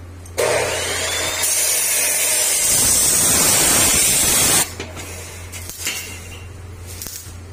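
Stick welding with an E6013 electrode on the steel tube frame: the arc strikes about half a second in, crackles and hisses steadily for about four seconds, then stops abruptly as it is broken, laying a tack weld. A steady low hum runs underneath.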